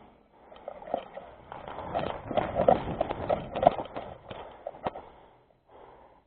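Quick, irregular footsteps and scuffing of a player moving fast over the ground, densest in the middle and trailing off near the end.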